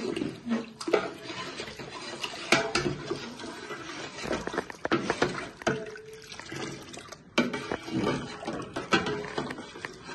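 Steel ladle stirring milk sharbat in a large metal pot: the liquid swishes and sloshes, with irregular clinks of the ladle against the pot.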